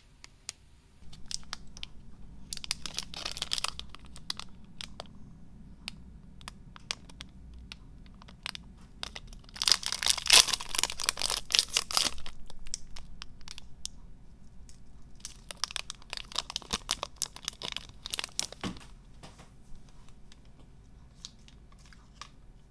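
Plastic foil-lined wrapper of a Black Thunder chocolate bar being torn open and crinkled by hand, in three spells of crackling, the loudest about ten seconds in, with small clicks and rustles between.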